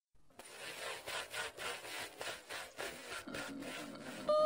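A rhythmic scraping or rasping sound, about three strokes a second, like sawing or rubbing. Just before the end a steady, high, voice-like tone begins.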